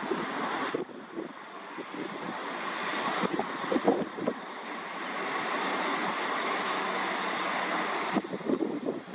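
Diesel multiple unit's engine running at the platform, a steady rushing drone, with wind buffeting the microphone in irregular gusts, strongest about four seconds in.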